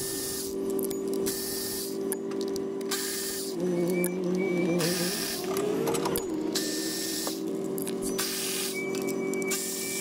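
Cordless electric ratchet running as it backs out the bolts of a diesel engine's injector hold-down cover: a steady motor whir that grows louder and wavers in pitch for a couple of seconds around the middle.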